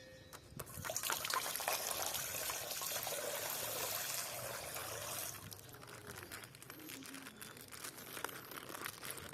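Water trickling steadily for about five seconds, then fainter.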